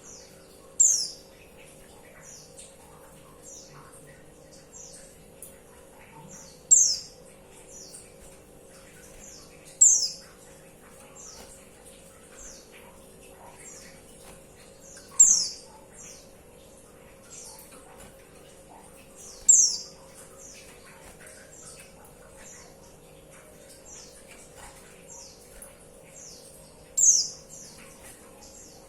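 Female white-eye (pleci) calling: short, high notes that slide downward, six loud ones a few seconds apart with fainter calls in between.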